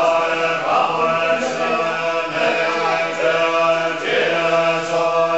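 Tibetan Buddhist monks chanting together in unison, a steady held drone on one pitch with no breaks.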